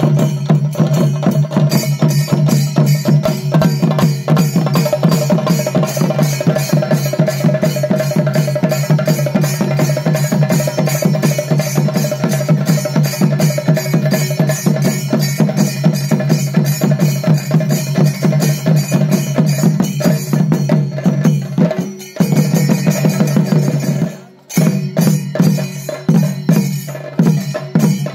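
Rapid traditional Thira ritual drumming: chenda drums beaten with sticks in a dense, fast rhythm, with ringing cymbals and a steady held tone beneath. The beating breaks off briefly twice near the end.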